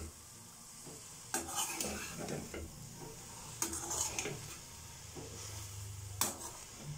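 Metal spatula stirring vegetables in a steel kadhai: a few separate scraping strokes with light clinks against the pan, over a soft sizzle.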